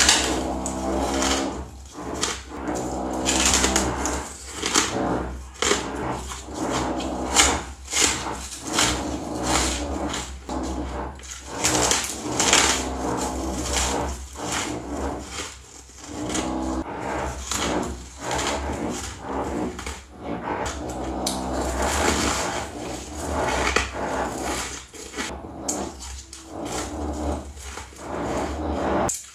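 A person biting and chewing hard white ice: irregular sharp crunches and cracks, one after another, close to the microphone.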